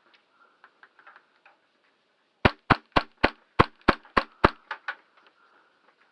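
Airsoft gun firing a quick string of about eight sharp shots, roughly four a second, with a couple of fainter cracks just after.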